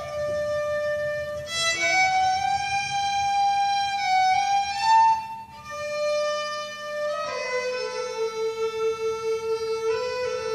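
A solo fiddle plays a slow Scottish tune in long, held, bowed notes, with a short break about five and a half seconds in.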